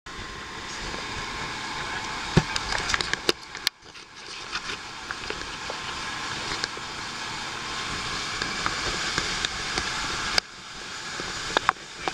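Rushing wind and spray noise from a rigid-hull inflatable boat running fast, peppered with frequent sharp crackles and pops of wind buffeting the microphone. The noise drops out abruptly twice.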